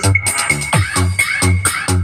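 Electronic dance music with a steady, heavy bass beat and bass notes dropping in pitch. This is the bass-test section of a sound-check track, played loud through PA speaker boxes.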